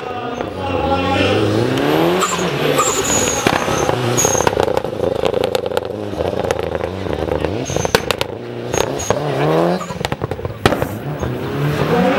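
Mitsubishi Lancer Evolution's engine at high revs on the limit, its pitch climbing again and again as it accelerates between corners and holding high in between, with sharp cracks scattered through it.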